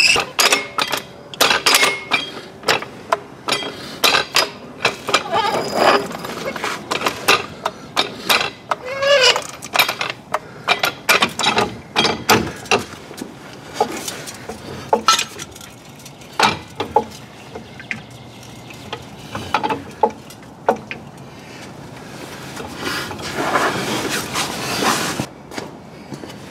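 Hydraulic floor jack being worked under a car: a run of irregular metallic clicks and knocks, with a short squeak about nine seconds in and a longer rushing noise near the end.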